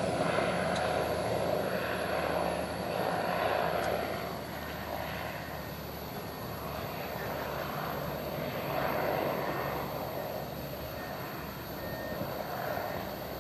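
Goodyear Zeppelin NT airship's piston-engine propellers droning steadily as it flies low past, getting a little quieter over the first several seconds as it draws away.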